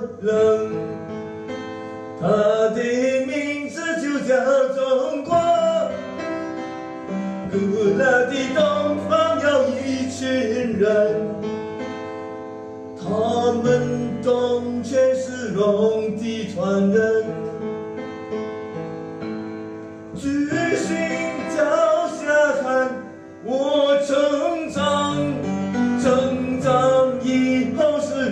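A man singing in phrases while accompanying himself on the piano.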